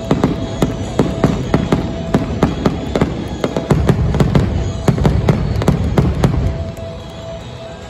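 Aerial fireworks shells bursting in quick succession, several sharp bangs a second over a low rumble, dying away about six and a half seconds in.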